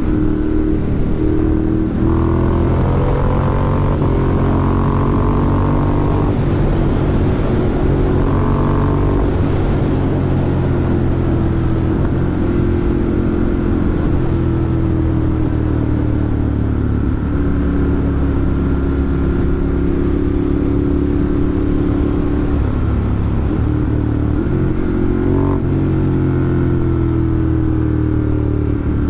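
Ducati Monster 1200 S's L-twin engine heard from the rider's seat at road speed, its note rising and falling with the throttle, over a steady rush of wind on the microphone.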